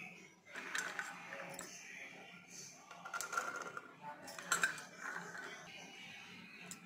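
Soaked dried peas tipped from a bowl into an aluminium pressure cooker, rattling and clattering onto the metal base, with clinks of the bowl against the pot. The clatter comes in three spells, about a second in, around three seconds in, and the loudest at four and a half seconds.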